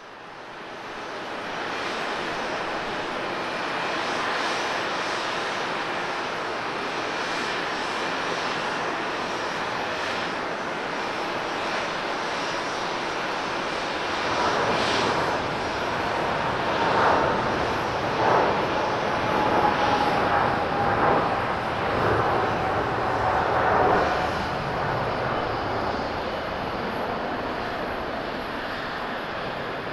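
Boeing 777-300ER's twin GE90-115B turbofans at takeoff power through the takeoff roll and lift-off: a steady jet roar that fades in at the start. About halfway it grows louder and rougher as the aircraft passes, with a whine that slowly falls in pitch, then eases near the end as it climbs away.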